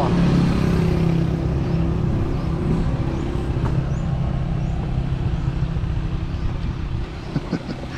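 Motorbike engine running steadily as it is ridden along the road, growing somewhat quieter toward the end.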